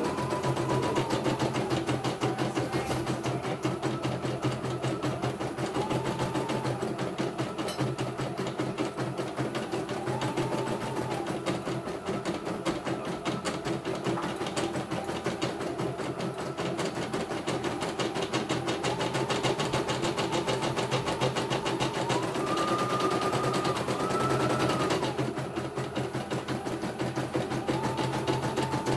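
CNY E900 computerized embroidery machine stitching a design, its needle running in a fast, steady rhythm. A faint whine rises and falls now and then.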